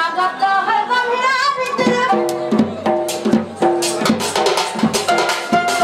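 A voice for about the first two seconds, then a Sambalpuri folk band starts up with held keyboard notes over regular dhol drum strokes.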